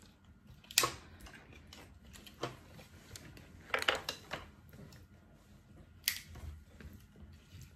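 Steamed lobster and crab shells cracking and snapping as they are peeled apart by hand: a few sharp cracks and clicks spread out, with a cluster of them near the middle.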